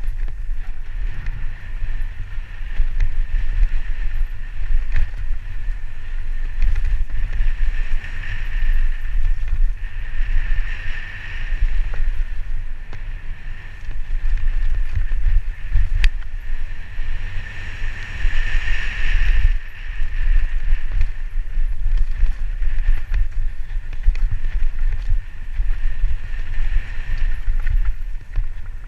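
Wind buffeting a helmet-mounted camera's microphone, with the rattle of a mountain bike over a rough dirt trail at speed. A higher buzz swells about a third of the way in and again about two thirds in.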